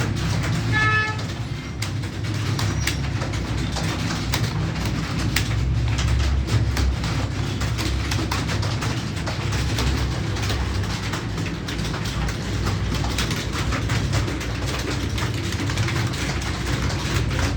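Computer keyboard typing: rapid, irregular key clicks over a steady low rumble.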